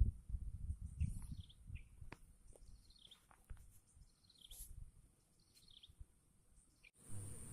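Birds calling outdoors with short, high, falling notes repeated every second or so, over a steady high-pitched hiss and uneven low rumble of wind or handling on the microphone.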